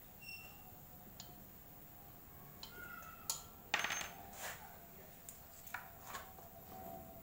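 Scattered sharp metallic clinks and knocks, the loudest a little under four seconds in, from a scooter wheel and tyre tools being handled on a workshop floor as the air inflator is picked up.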